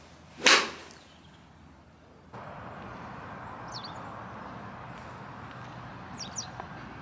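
A golf club swung through a wedge shot, one sharp swish-and-strike about half a second in. After about two seconds a steady background hiss takes over, with two faint, short high chirps.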